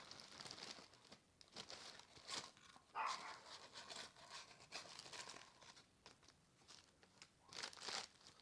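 Faint, intermittent crinkling and rustling from something being handled, with quiet gaps between.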